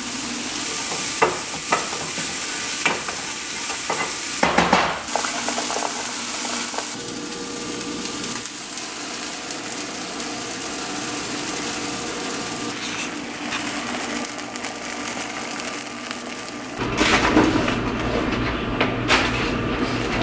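Ground turkey and onions sizzling in a frying pan, with a few sharp clicks and a louder burst of noise about four and a half seconds in. Near the end the sizzling gives way to a low hum and a few knocks.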